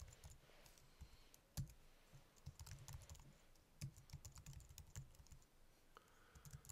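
Faint typing on a computer keyboard, in short bursts of keystrokes with pauses between them.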